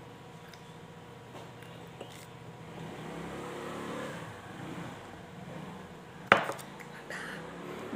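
Coffee sipped from a mug, then the mug set down on the table with one sharp knock a little over six seconds in.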